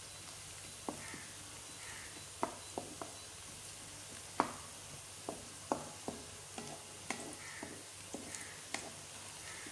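Sliced onions sizzling in hot ghee, being fried until golden, while a spatula stirs them, scraping and knocking against the pot a dozen or so times.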